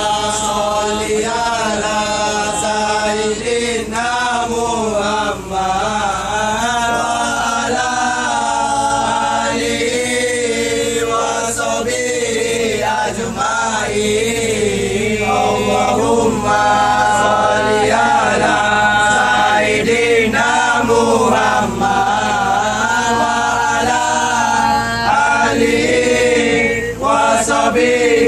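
A group of men chanting a melodic song together in unison, voices held and wavering on long notes.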